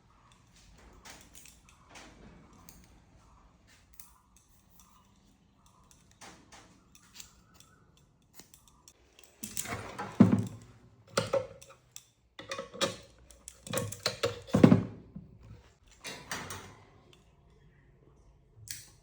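Metal parts and hand tools being handled on a workbench: scattered light clicks, then a run of loud knocks and scrapes from about halfway through that dies away near the end.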